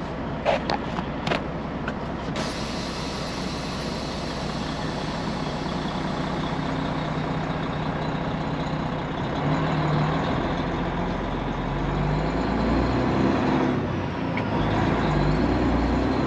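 Semi-truck's diesel engine heard from inside the cab as the truck moves off, its note rising in steps in the second half over a steady hiss, with a few clicks near the start.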